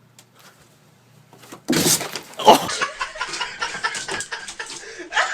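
A sudden loud crash about two seconds in and a second bang half a second later, followed by a busy clatter mixed with laughter.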